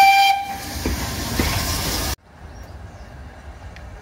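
Steam whistle of a Fowler 3F "Jinty" 0-6-0T tank locomotive, one long steady blast that stops about a second in, followed by the noise of the train moving off. About two seconds in the sound cuts abruptly to a much quieter background.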